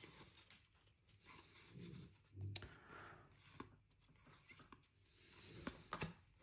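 Faint handling of a stack of Topps baseball cards: cards slid over one another and flicked from the front of the pack to the back, with a few soft clicks of card edges, the sharpest near the end.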